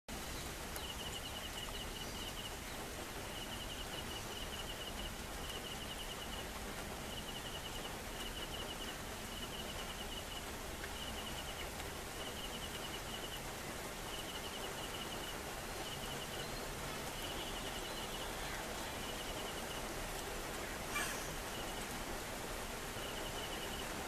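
Outdoor wetland ambience: a steady hiss with a high chirping repeated about once a second, and one sharp click about 21 seconds in.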